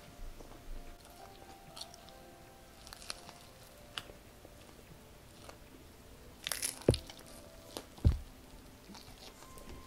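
Mouth sounds of biting and chewing a crispy Korean fried chicken drumstick coated in stretchy cheese, close to the microphone: scattered crunches, a louder crunchy bite about six and a half seconds in, then two dull thumps.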